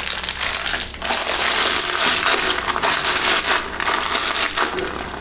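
Clear plastic bag crinkling and crunching as it is handled and pressed into a toilet's drain hole, loudening and easing off irregularly.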